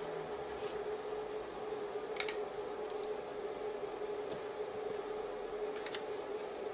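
Small metallic clicks of a screwdriver against screws and the metal chassis of a JVC GY-HD251 camcorder tape deck as screws are driven in: about five scattered clicks, the loudest a little over two seconds in, over a steady hum.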